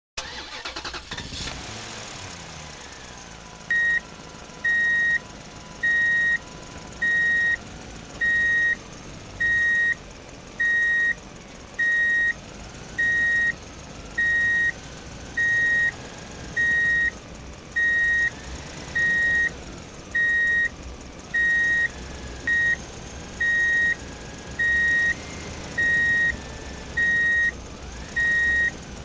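Truck reversing alarm beeping steadily, about one beep every 1.2 seconds, starting about four seconds in, over a running vehicle engine.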